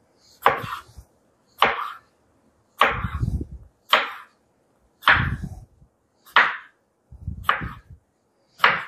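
Chef's knife slicing through a cucumber and striking a wooden cutting board: a crisp cut and knock about once a second, eight times.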